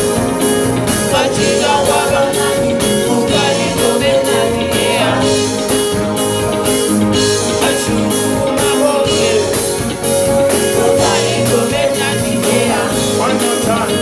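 Live band playing: lead and backing singers singing over electric guitar and drums, with a steady beat.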